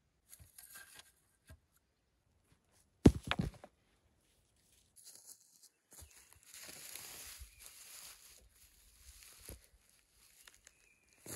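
Rustling of dry grass and dead bracken as a stone half-buried in the turf is handled and pulled loose, with one sharp, loud thump about three seconds in and a lighter knock near the end.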